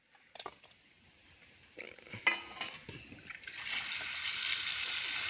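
A few knocks and clinks of a vessel being handled, then from about three and a half seconds in, a steady rush of water pouring and splashing as sardines are washed.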